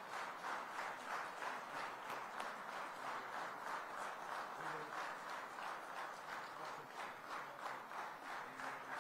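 A crowd applauding, clapping in a steady rhythm of about three claps a second.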